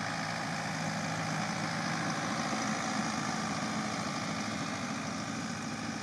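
Farm tractor's diesel engine running steadily as the tractor drives across the field with its broadcast spreader sowing seed. The hum eases slightly toward the end as the tractor moves off.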